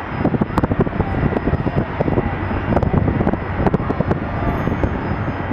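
Jet engines of a Boeing 757-200 on landing approach: a rough, rumbling engine noise with irregular crackle that gets suddenly louder at the start as the airliner nears.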